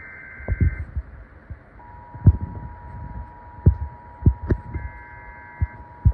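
Emergency Alert System tones. A roughly one-second burst of the data header's two-pitch warble ends just after the start. The steady two-tone attention signal begins about two seconds in and holds, and another header burst sounds over it around five seconds in. Irregular low thumps come and go throughout.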